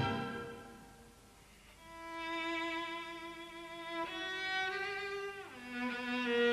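An orchestral chord dies away in the concert hall's reverberation. A solo cello then enters with a slow melody of long bowed notes, sliding down between two notes and back up again near the end.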